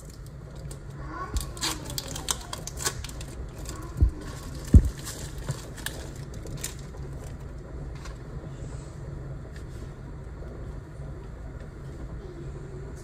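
Kitchen knife slicing fresh mozzarella on a cutting board: a run of sharp clicks and taps, with two heavier thumps about four and five seconds in, over a steady low hum.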